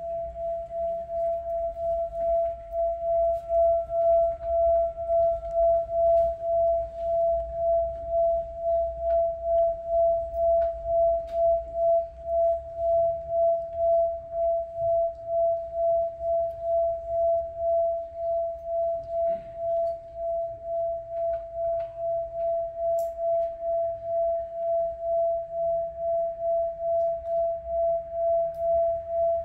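One sustained ringing tone, steady in pitch, with a regular wobble of about one and a half pulses a second. A faint higher overtone dies away about six seconds in.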